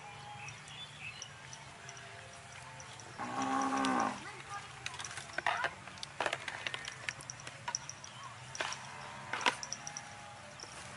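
A cow moos once, a single call of about a second. Afterwards come several sharp knocks and rattles of plastic bowl and basket being handled.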